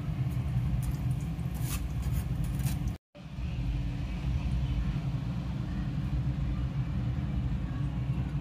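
Raisins frying in hot oil in a mesh strainer basket set in a kadhai, over a steady low rumble. A few light metal clinks of a spoon against the strainer come in the first three seconds. The sound cuts out for a moment about three seconds in.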